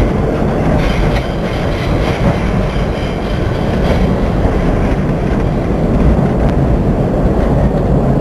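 New York City subway N train running on the rails: a steady, loud rumble of wheels and car.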